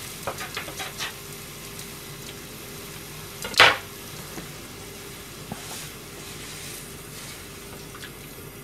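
Mapo-style tofu stew simmering and sizzling in a frying pan over a gas burner, with a few light clicks near the start and one brief, louder rasp about three and a half seconds in.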